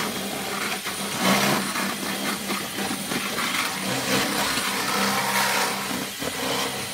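Cordless drill running under load as its bit grinds into the metal lock of an ATM cash cassette, a steady motor hum under rough metal-cutting noise. The motor drops in pitch briefly about a second in and again around four seconds, bogging as the bit bites.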